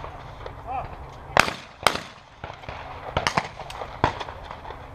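Shotgun fired twice in quick succession, about half a second apart, at an Olympic trap clay target, just after a short shouted call for the target. Several fainter sharp cracks follow a second or two later.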